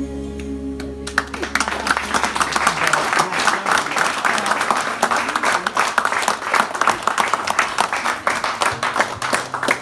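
The band's last chord dies away, and about a second in the audience breaks into steady applause, many hands clapping.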